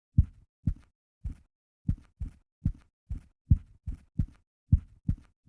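Typewriter keys being struck one at a time, dull thumps at an uneven pace of about two to three a second.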